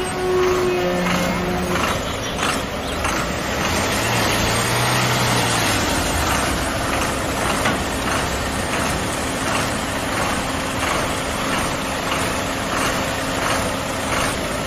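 Heavy bus diesel engine pulling slowly round a tight hairpin bend, its note rising and falling about four to six seconds in, over steady traffic noise.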